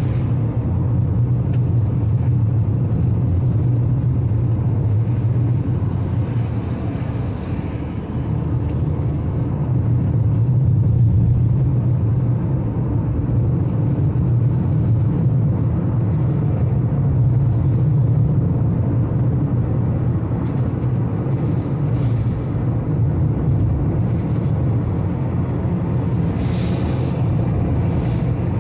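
Steady low drone of a car's engine and tyres on a wet highway, heard from inside the cabin, with a brief rise of hiss near the end.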